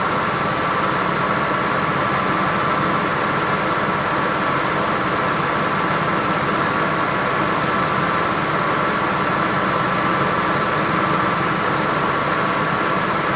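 1998 Ford Expedition's 5.4-litre V8 idling steadily with the air conditioning on high.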